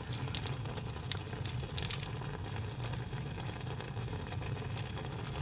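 Soft, steady sizzling and crackling of instant noodles cooking in a little water in a saucepan, with faint crinkles from a plastic sauce sachet being squeezed out.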